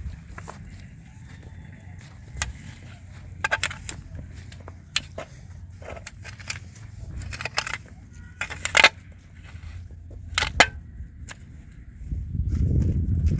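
Irregular crunches and knocks of snow being handled and trodden, over a steady low rumble. Near the end a louder, deeper rumble comes in for about two seconds.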